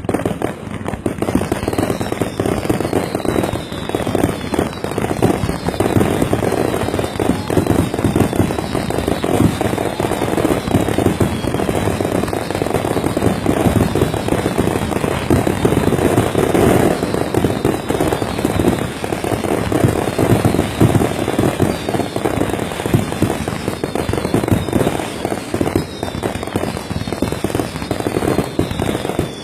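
Fireworks going off in a dense, unbroken barrage of rapid bangs and crackling with no pauses: a chain-fire of the shells on the shooting platform, set off together from a single fuse.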